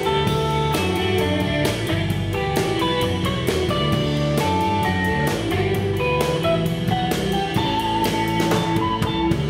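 Live rock band playing an instrumental passage: a drum kit keeps a steady beat with cymbal hits under interweaving electric guitar lines and bass.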